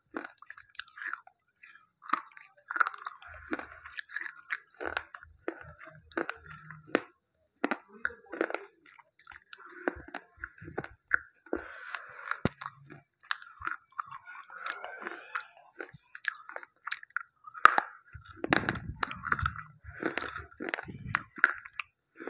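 Slate pencil being bitten and chewed right at an earphone microphone: irregular crisp crunches with gritty grinding between bites.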